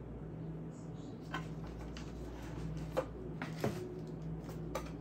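Lab-kit bottles and packaging being handled in a cardboard box: a few short clicks and light knocks, the loudest about three seconds in, over a steady low hum.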